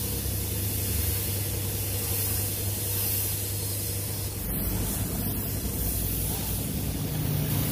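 Compressed-air paint spray gun spraying paint onto a car body panel: a steady hiss of air and atomised paint over a low hum.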